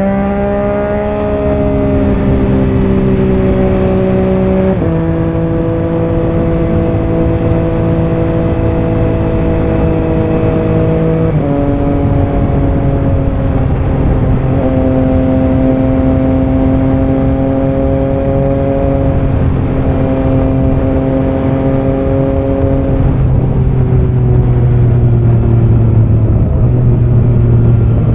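Triumph Trident 660 three-cylinder motorcycle engine running under way, its pitch stepping down several times and holding fairly steady between the steps.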